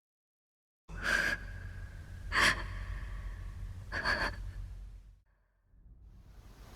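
A character's breaths in an animated drama: three sharp gasping breaths about a second and a half apart over a low rumble, followed near the end by a swelling hiss.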